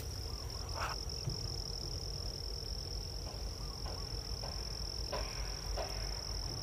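Steady high-pitched insect trill over a low outdoor rumble, with a few brief faint sounds over it.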